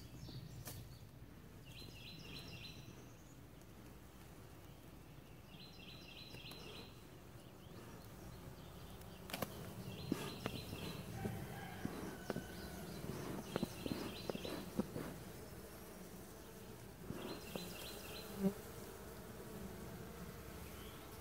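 Honeybees buzzing in a hive as its inner cover is pried open. Crackling, tearing snaps come between about 9 and 15 seconds in as the propolis-sealed cover tears free, a sound likened to silk ripping: the tearing of wax moth webbing inside.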